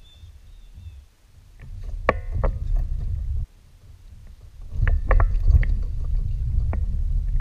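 Fishing from a kayak: a low rumble comes in two spells, each cutting off suddenly, with a few sharp clicks and rattles from the tackle and rod.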